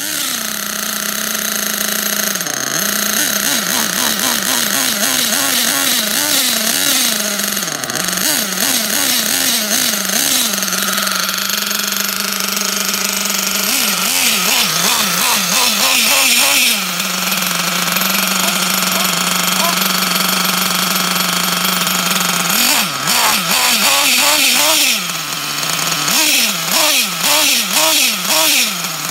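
Nitro glow engine of a Kyosho Inferno Neo ST 3.0 RC truggy idling with the glow plug igniter still on, its throttle blipped by hand in runs of quick rises and falls in revs, about two a second. It settles to a steady idle in the middle and between runs.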